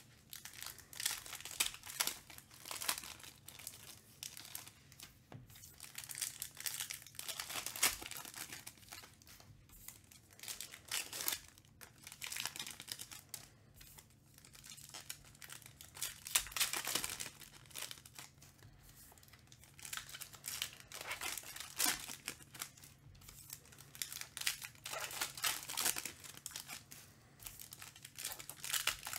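Foil trading-card pack wrappers crinkling and tearing as packs are ripped open by hand, in irregular repeated bursts.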